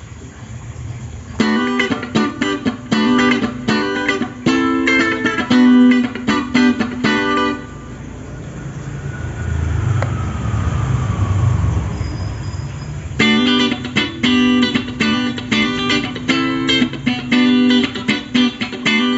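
Schecter Banshee-6 FR SGR electric guitar being picked in a riff of short, separate notes. It stops for about five seconds in the middle, when only a low rumble is heard, then the picking starts again.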